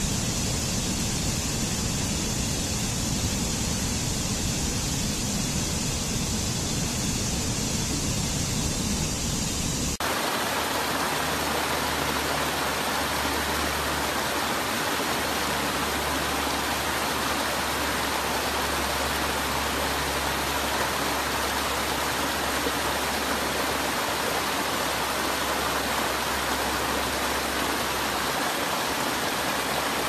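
Water of a rocky stream rushing and cascading over boulders, a steady even rush. About ten seconds in it changes abruptly to a brighter, hissier rush of water over a small stepped cascade.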